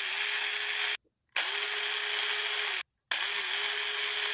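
24V battery-powered mini one-handed chainsaw running without load in short trigger bursts, a steady whine with chain hiss. It cuts out about a second in, runs again for about a second and a half, and starts once more shortly before the end.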